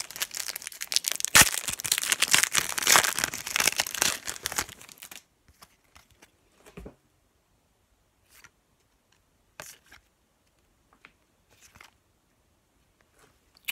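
Trading-card pack wrapper being torn open and crinkled for about five seconds, then faint, scattered clicks and rustles of the cards being thumbed through one by one.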